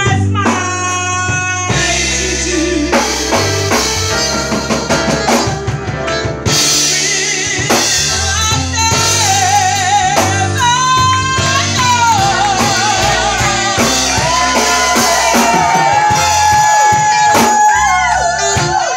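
Live band playing: drum kit with cymbals, keyboard, and a singer holding long, wavering notes that slide up and down.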